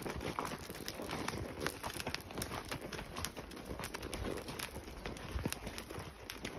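Horses' hooves clopping on a dirt and gravel trail: an uneven run of steps from several horses moving along.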